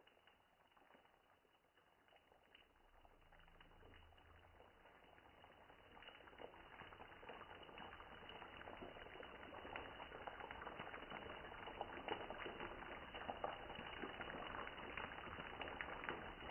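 Fish steaks shallow-frying in hot oil in a pan: the oil sizzles and crackles with many small pops, starting faint and growing steadily louder.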